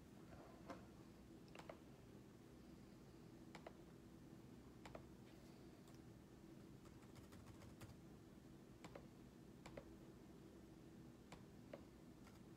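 Near-silent room tone with a low hum, broken by about a dozen faint, irregular clicks.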